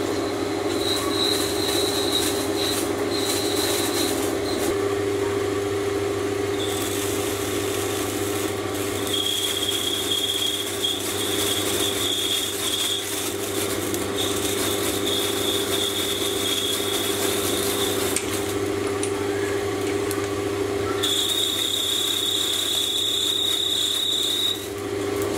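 Sieg C3 mini lathe running while its cutting tool turns a ferrocerium (ferro) rod, throwing sparks: a steady motor hum under a scraping, hissing cut, with a high squeal that comes and goes.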